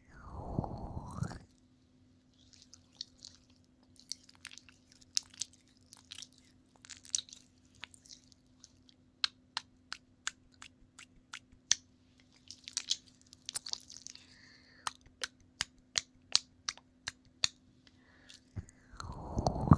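Close-miked wet mouth sounds: tongue and lip clicks of ASMR ear licking, scattered at first, then a regular run of sharp clicks about two a second through the middle. A breathy rush into the microphone comes at the start and again near the end, over a faint steady hum.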